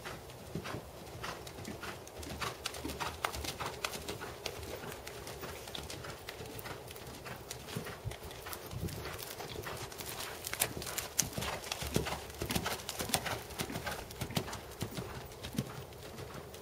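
Hoofbeats of a black Percheron/Thoroughbred gelding under saddle on arena dirt footing, a quick even run of strikes that grows louder about two-thirds of the way through.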